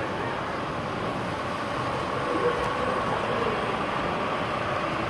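O-scale two-rail model passenger train running past on its track: a steady rolling rumble of wheels on rail with a light motor whine, growing a little louder after about two seconds as the train comes by.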